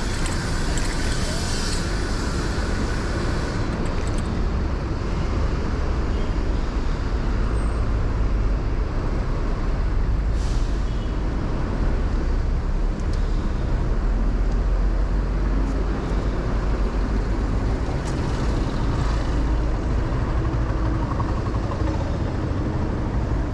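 City street traffic heard from a moving bicycle: steady vehicle noise over a constant low rumble, with a short hiss about ten seconds in.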